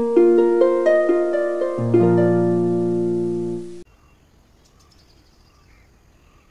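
Intro jingle of plucked harp-like notes running upward, with a low bass note joining about two seconds in. It cuts off suddenly a little before four seconds, leaving a faint outdoor background with a few faint high chirps.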